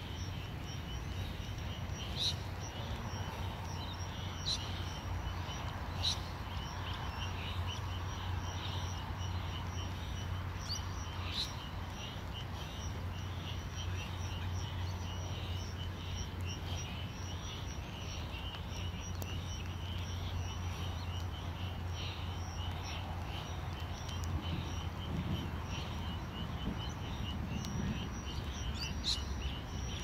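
A steady chorus of chirping insects, with a few short bird chirps over a low, steady rumble.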